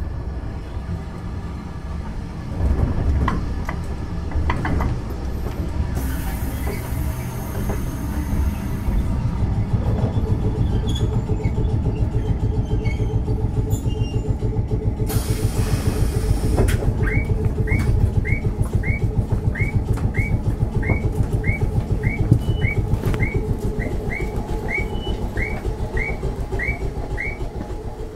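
Inside a Keifuku Electric Railroad (Randen) tram car: low running rumble with rapid mechanical pulsing and a few clicks early on. Two bursts of air hiss come at about a quarter and a half of the way through. From about two-thirds in, a short rising chirp repeats about twice a second.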